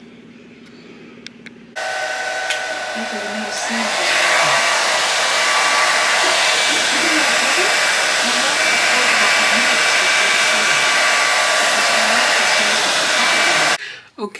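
Handheld hair dryer blowing hair dry. It switches on about two seconds in, gets louder a couple of seconds later, runs steadily with a whine, and cuts off near the end.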